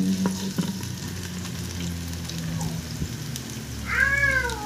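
Sliced onions and garlic frying in hot oil in a pressure cooker's inner pot, a steady sizzle with a few faint clicks. Near the end a child's voice calls out briefly.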